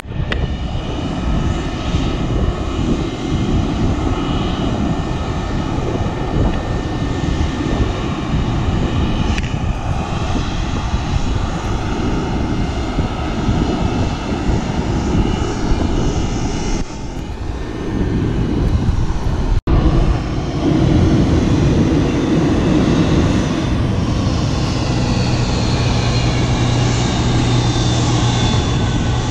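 Jet engine noise from a McDonnell Douglas MD-88's rear-mounted Pratt & Whitney JT8D turbofans: a steady rumble with high whining tones. It grows louder about twenty seconds in, and near the end a high whine drifts down in pitch.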